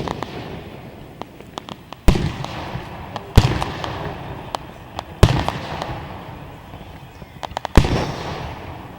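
Aerial fireworks shells bursting overhead: four loud booms, one to two and a half seconds apart, each trailing off in a rumble, with smaller pops and crackles in between.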